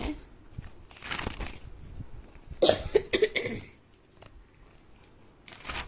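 Paper rustling as notebook pages are handled and turned, in a few short bursts; the loudest, about halfway through, carries a brief vocal sound.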